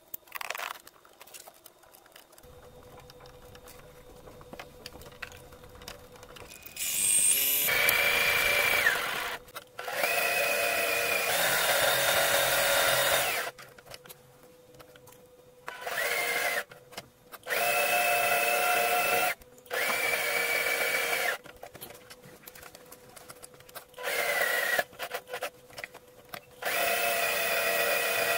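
Electric sewing machine fitted with a walking foot, stitching through quilt layers in short runs of one to two seconds. The motor whine starts and stops about seven times, sometimes rising in pitch as it speeds up. Before the stitching, for the first few seconds, there are quieter clicks and handling sounds.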